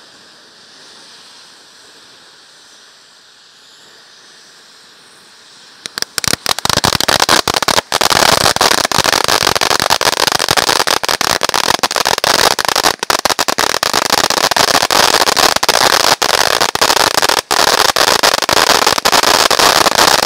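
Radioactive Meltdown 90-second firework fountain, first spraying with a soft hiss; about six seconds in, its crackling stars go off in a very loud, dense, continuous crackle that keeps going.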